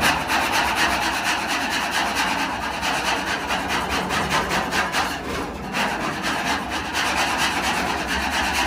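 Old headliner glue being scraped off the VW Bus's bare steel roof panel: a continuous scraping made of quick, repeated strokes.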